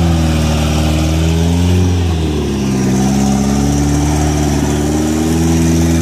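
Engine of a caged rock-crawler truck on big off-road tyres working under load as it climbs a rock ledge. The engine note dips about two seconds in, then climbs slowly and drops again near the end.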